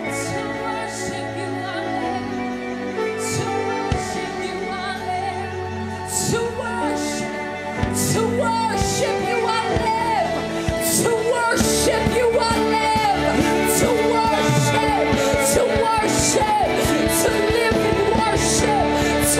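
Live worship music: a band with held keyboard chords and a singer's voice. The singing comes in about six seconds in, and the band fills out and grows louder around eight seconds and again around twelve.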